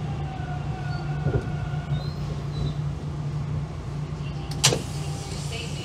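Subway train decelerating into a station: its motors give a whine that slides down in pitch over a steady low hum as it brakes. A single sharp clunk comes near the end.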